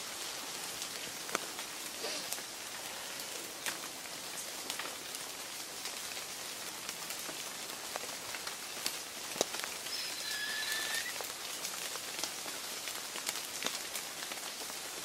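Steady outdoor hiss with scattered soft ticks, and a short high whistle about ten seconds in.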